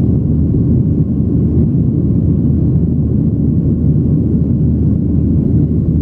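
Steady low rumble of a Boeing 737 in its climb after takeoff, heard inside the cabin: jet engines and rushing air, even and unbroken.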